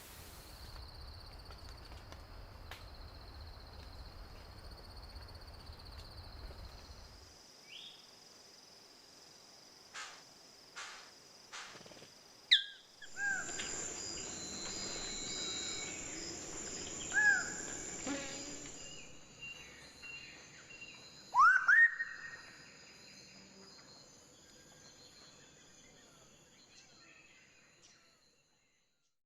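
Wild forest ambience: a steady high insect drone with a few loud, sharp bird calls sweeping in pitch through the middle, fading out near the end.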